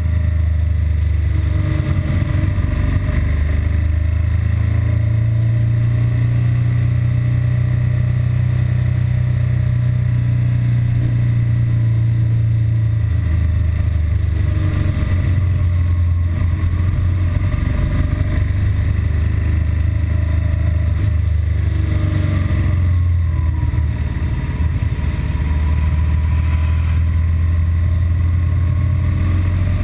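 BMW R1200GS Adventure's flat-twin boxer engine running as the bike is ridden, its note shifting a few times. The engine is running normally here, without the stalling or rough idle it develops later when hot in traffic.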